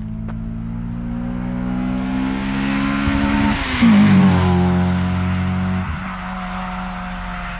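Acura TSX (CU2) with a Yonaka catback exhaust and PLM header accelerating past, its exhaust note climbing in pitch as it approaches. The note is loudest and drops in pitch as the car goes by about halfway through. The low drone steps down suddenly near the end as it drives away.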